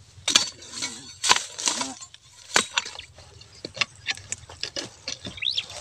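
Dry grass, stems and twigs crackling and snapping in quick irregular clicks as a hand pushes through the brush at the mouth of a burrow. Short rising bird chirps come near the end.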